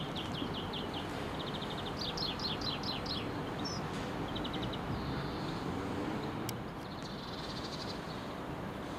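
Small birds chirping in quick runs of short, falling notes, busiest in the first few seconds and again near the end. Beneath them is a steady low rumble from a train drawing slowly into the platform.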